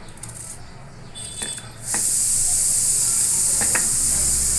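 A few faint knife clicks as small onions are cut. Then, about two seconds in, a loud steady hiss starts abruptly and keeps going.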